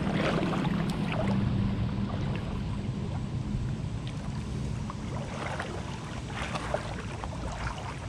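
Steady rush of fast river current flowing past, with a low rumble underneath and a few faint clicks.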